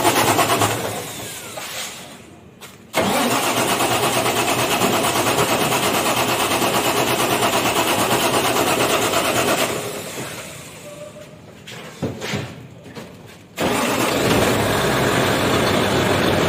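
Six-cylinder Yuchai diesel engine in the rear of a Yutong bus, freshly overhauled with new cylinder liners, pistons and rings, running on test. Twice it is switched off and winds down over about two seconds, and soon after it is running steadily again.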